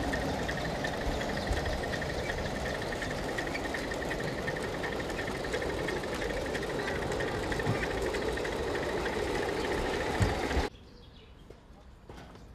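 Live-steam model train running along the track, a steady rattling run with a fast fine rhythm. It cuts off abruptly about eleven seconds in, leaving a much quieter background.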